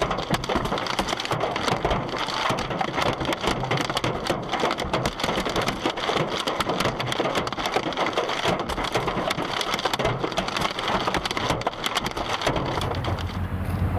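Heavy precipitation pelting hard surfaces in a dense, continuous clatter of sharp impacts. About twelve and a half seconds in, it gives way to a low steady hum.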